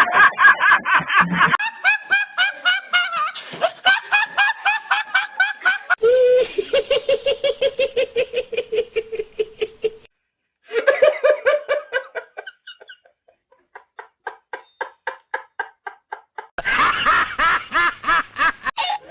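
A string of separate laughing sound effects played back to back, several different laughs, each a rapid run of ha-ha pulses. One laugh holds a steady, fairly high pitch, and there is a short gap of silence about ten seconds in.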